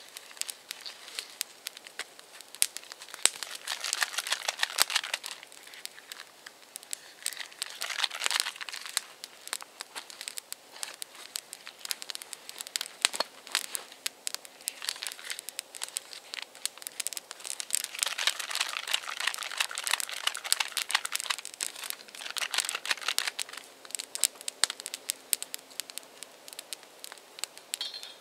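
Small wood fire crackling with many sharp pops under a stainless-steel pot, with several bouts of crinkling and rustling from handling close by.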